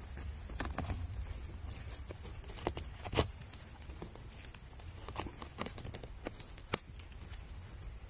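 A cluster of red-stemmed boletes being pulled out of moss and forest floor by hand: scattered rustling, small snaps and crackles, with two sharper cracks, about three seconds in and just before seven seconds. A low rumble runs underneath.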